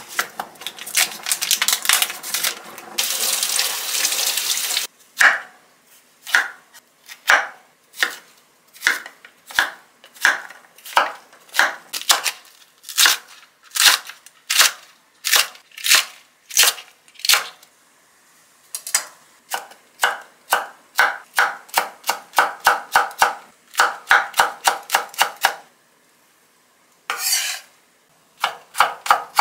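Chef's knife chopping green onion on a wooden cutting board, sharp strokes about one or two a second, then quicker, finer slicing of green chili peppers at about three or four strokes a second. The first five seconds are a steady rushing noise, and a short rush comes again near the end.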